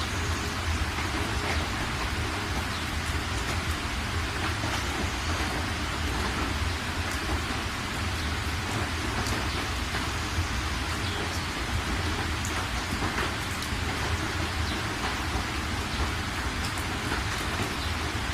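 Steady rain falling, an even hiss with a constant low rumble beneath and scattered sharper drop ticks.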